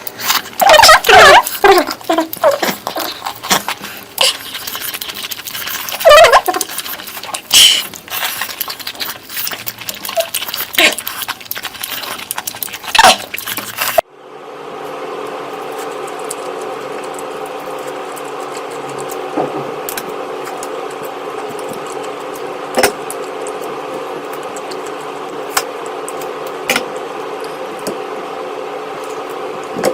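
Close-up eating sounds: wet chewing and slurping with irregular clicks and smacks through the first half. Then, after an abrupt cut, a steady even hum with a few isolated sharp clicks.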